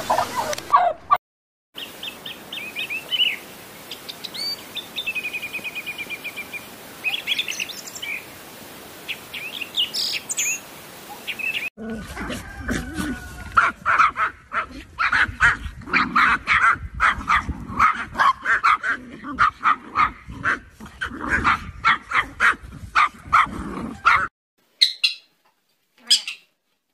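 Small birds chirping in short high calls, then, about twelve seconds in, a group of small fluffy dogs such as Pomeranians starts yapping rapidly and excitedly for about twelve seconds. The barking stops abruptly and it is nearly silent at the end.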